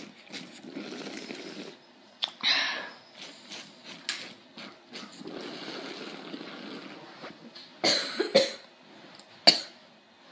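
Air sucked through a long homemade straw of ten plastic drinking straws joined end to end, a steady noisy slurp twice, each for a second or two. Air leaks in at the split joints, so little water comes up. A short loud burst comes about two and a half seconds in, and a few sharp sounds near the end.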